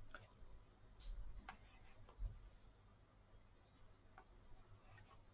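Near silence with a few faint, short scratchy strokes of a paintbrush on paper, scattered through the first couple of seconds and again near the end, over a low hum.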